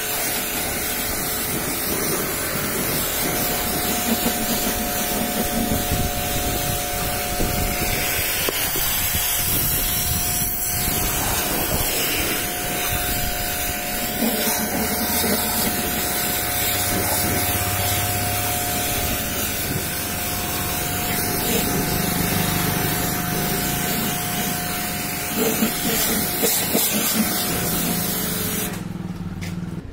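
High-pressure washer jet hissing steadily as it blasts water onto a car's rear bodywork and bumper, with a steady hum under it. The spray cuts off just before the end.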